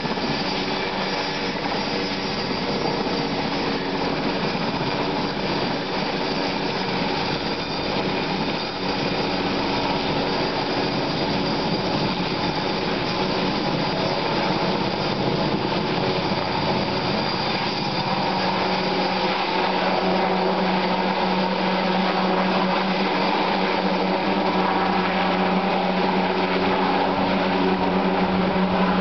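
Helicopter's steady turbine whine and rotor noise as it flies overhead lifting a bucket of concrete slung on a long line. About two-thirds of the way through, a low steady hum joins in and grows slightly louder.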